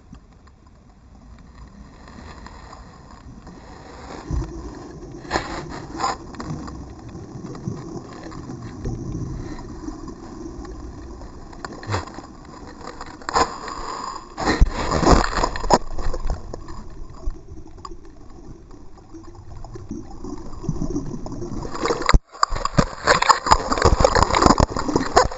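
GoPro camera in its waterproof housing tumbling across the seabed, picking up a muffled underwater rumble with knocks and scrapes against sand and rock, thickest around the middle. Near the end the sound cuts out briefly, then comes back as heavy bumping and rubbing right on the housing.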